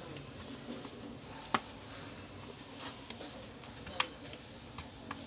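Clicks and snaps of the Samsung Galaxy Tab A 10.1's case clips being pried apart with a plastic opening card worked along the edge seam. There are two sharp snaps, about a second and a half in and about four seconds in, and softer clicks and scraping between them.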